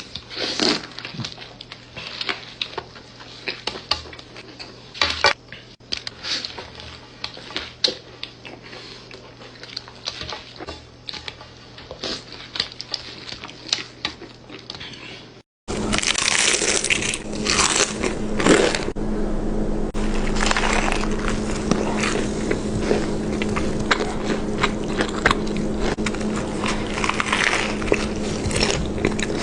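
Close-miked eating: chewing, crunching bites and wet mouth sounds. About halfway through, the sound cuts to another eater, louder and with a steady hum underneath.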